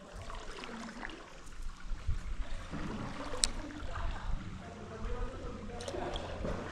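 Water lapping and trickling, a steady low splashing wash, with one sharp click about three and a half seconds in.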